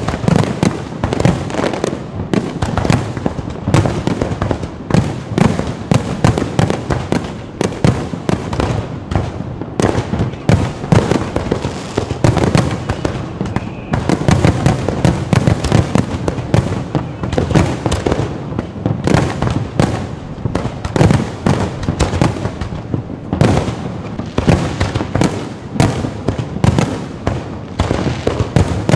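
Fireworks and firecrackers going off in a continuous, dense barrage of sharp bangs and crackles, many per second, with deeper booms mixed in.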